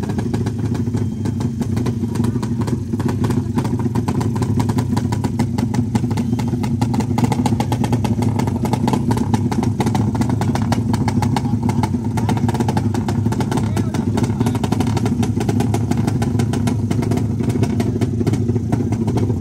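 Suzuki Satria FU drag bike's single-cylinder four-stroke engine running steadily at idle, a fast, even pulse with no revving.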